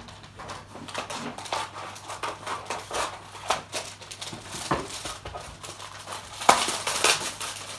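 Parts and packaging of a boxed star projector kit being handled: rustling with many small clicks and knocks, and a louder clatter about six and a half seconds in.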